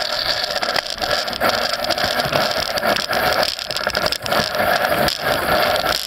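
Lines being hauled through the winches and blocks of a Farr 30 racing sailboat: a run of rattling, whirring strokes about a second each with short breaks between, over a steady rush of wind and water.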